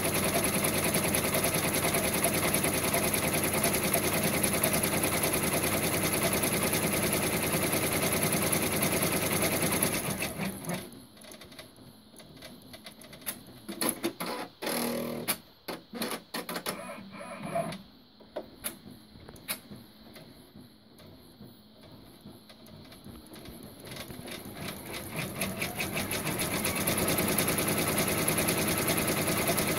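Brother PR1050X multi-needle embroidery machine stitching steadily at speed. About ten seconds in it stops stitching between letters, giving a quieter stretch of scattered clicks and knocks. Near the end it starts up again and speeds back up to full stitching.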